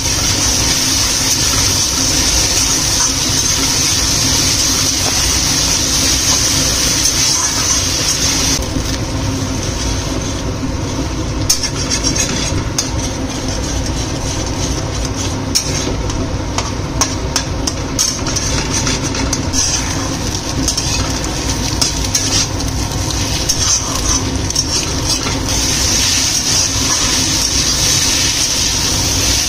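Food frying in oil in a wok with a steady sizzle, stirred and scraped with a metal spatula. The scraping and tapping is busiest through the middle, over a steady low hum.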